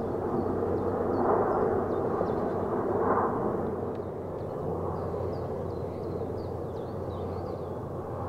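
Airbus A400M Atlas in flight, its four TP400-D6 turboprop engines giving a steady drone with a low hum beneath, swelling briefly about a second in and again about three seconds in. Small birds chirp faintly above it.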